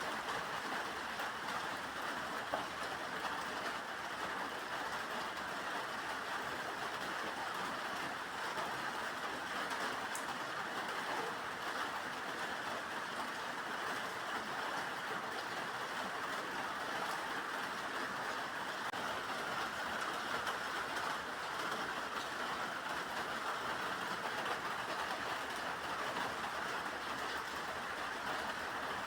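Steady rain falling, an even noise without breaks or pauses.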